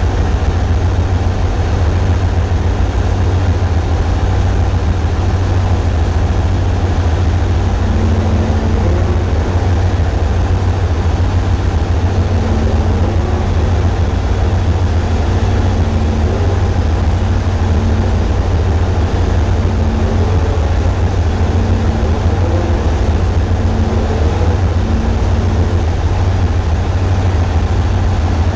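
Tugboat's diesel engines running steadily: a loud, heavy low rumble, with the microphone shaken by hull vibration so the sound comes through distorted.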